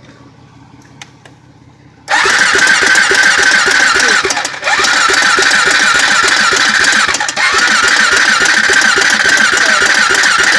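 Honda 400EX ATV's single-cylinder four-stroke engine starts abruptly about two seconds in, then keeps running steadily with a rapid, even firing beat. It falters briefly twice.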